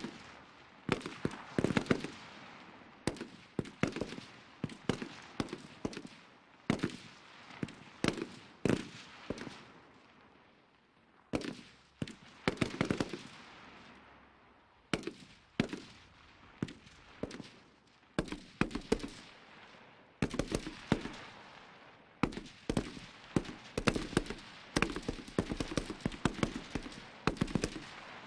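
A series of gunshot sound effects: single shots and short rapid bursts, each crack followed by a fading echo.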